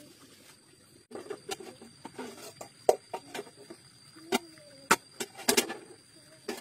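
Metal cooking pots and lids clattering and knocking together as they are handled, with several sharp clanks between about three and six seconds in.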